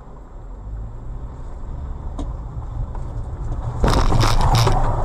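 Car running with a low rumble that builds steadily, then about four seconds in a loud burst of crunching and scraping lasting over a second.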